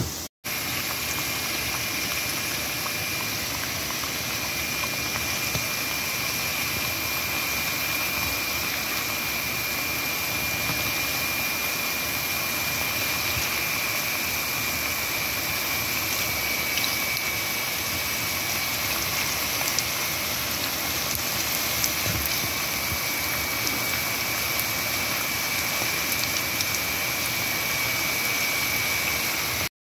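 Oliebollen dough deep-frying in a pot of hot oil: a dense, steady sizzle of bubbling oil, with a faint steady high whine running under it.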